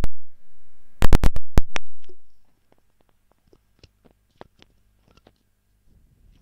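Computer mouse clicks: a sharp click, then a quick run of four or five clicks about a second in, followed by faint scattered ticks.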